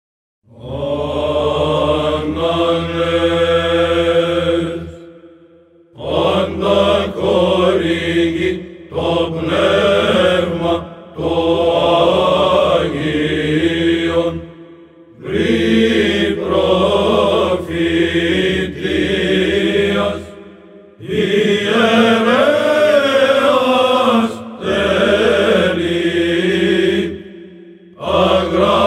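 Byzantine chant: a men's choir of cantors sings a melody in phrases over a low held drone (the ison). It starts about half a second in after silence, with short breath pauses between phrases.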